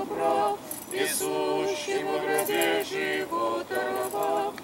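A small group singing an Orthodox Paschal hymn unaccompanied, in slow held notes that break off and start again every second or so.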